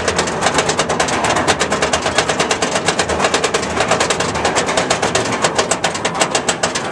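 Roller-coaster chain lift hauling the train up the lift hill: a rapid, even clatter of anti-rollback dogs clicking over the ratchet track, many clicks a second over a low chain rumble.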